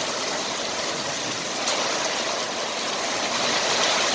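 Steady hiss of a downpour, with light hail mixed in and one faint tick about halfway through.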